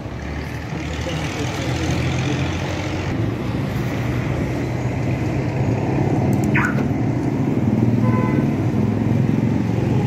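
Car engine running steadily at idle, a continuous low hum, with a brief chirp partway through.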